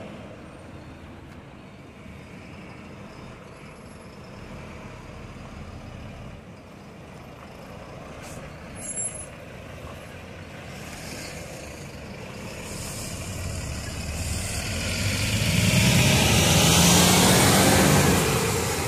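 Diesel coach bus engine running as the bus pulls out and passes close, building steadily to its loudest near the end. A brief sharper sound about nine seconds in.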